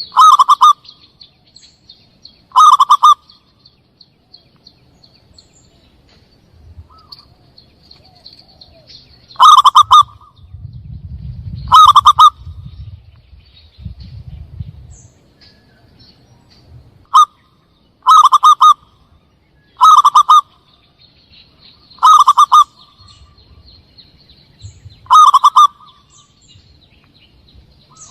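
Zebra dove (perkutut) calling: about nine short, loud cooing calls at irregular gaps of two to seven seconds, a recorded lure call for attracting wild doves. A faint, steady high-pitched buzz runs underneath at times.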